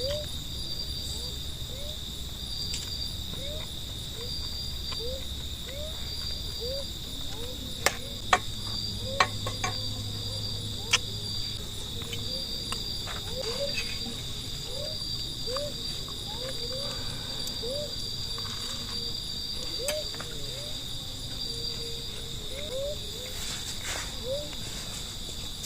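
Night insects, crickets among them, trilling steadily, one of them in a pulsing high rhythm. Underneath, a short rising call repeats about once a second. A few sharp clicks come in the middle.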